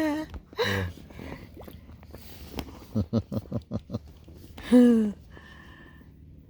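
Crows calling: a drawn-out caw at the start and another shorter one just after, a quick run of short calls about three seconds in, and another long caw near the end.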